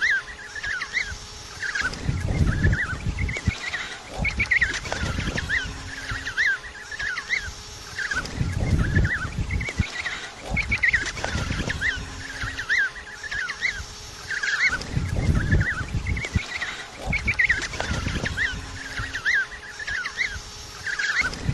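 Many penguins calling at once in a colony: a dense, overlapping chatter of short, high calls, with bursts of low rumbling noise every few seconds.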